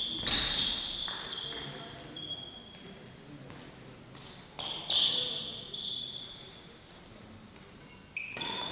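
Badminton being played on a hall floor: a few sharp racket hits on the shuttlecock, mixed with short high squeaks of shoes on the floor, echoing in the large hall.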